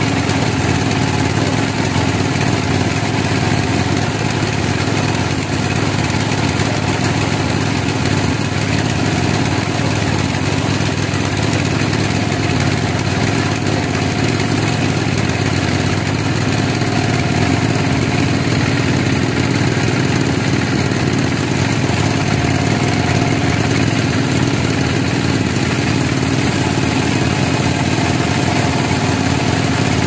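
Large carriage band sawmill running with a steady mechanical drone, the band saw blade cutting lengthwise through a pine log fed on the carriage.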